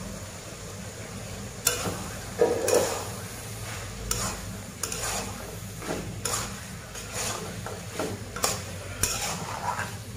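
A spatula scraping and turning cubed beef heart through a thick tomato-onion masala in a wok, in irregular strokes about two a second that start a couple of seconds in, with a light sizzle and a steady low hum beneath.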